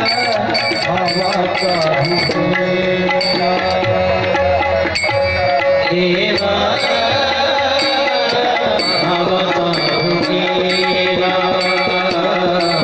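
Tabla and harmonium playing together in a Marathi devotional song: the tabla keeps a steady rhythm under held harmonium notes, with a regular high metallic tick keeping time.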